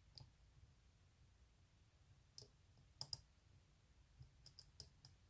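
Faint, scattered clicks of a dimple pick working the pins of a Mul-T-Lock dimple padlock held under tension. The clicks come singly or in quick pairs at irregular intervals, a cluster of them near the end.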